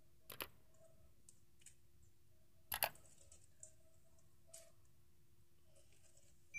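Mouse-click sound effects from a like-and-subscribe animation: a sharp click about half a second in and a double click a little under three seconds in, with a few faint ticks over a low steady hum.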